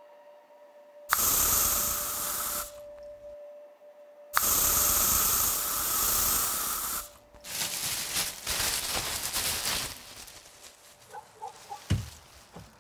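Pump sprayer hissing as it sprays, in two long bursts and then a stretch of shorter broken spurts. A few sharp knocks come near the end.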